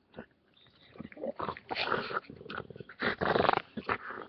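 American bulldog growling in play, in irregular rough bursts that start about a second in and are loudest a little after three seconds.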